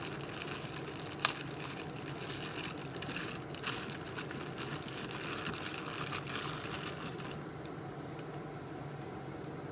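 Cosmetic packaging being handled and rustled, with light crinkles and ticks and one sharp click about a second in; the rustling stops about three-quarters of the way through, leaving a low steady room hum.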